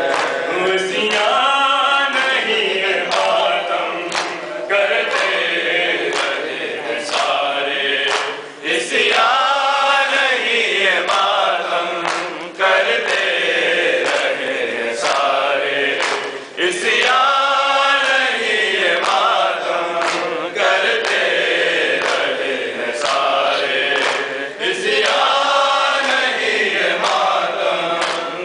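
Men's group reciting an Urdu noha (Shia lament) in unison, in long rising and falling sung phrases, with regular chest-beating (matam) slaps keeping time.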